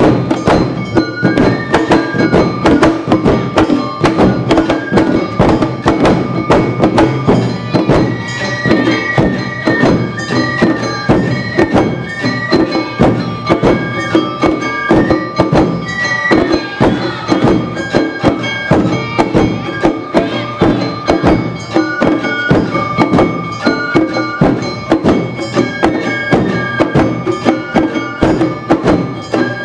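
Awa Odori hayashi band playing: dense, fast drum and bell strikes under a high flute melody of held notes.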